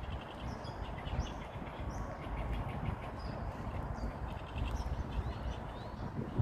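Songbird calling: short, high chirps repeated every second or so, mixed with quick trilled phrases, over a steady low rumble.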